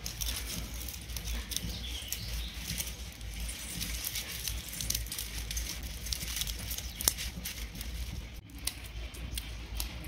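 Small scissors snipping dry agar-agar (china grass) strands into short pieces: many light snips at an uneven pace, with the brittle strands rustling between them.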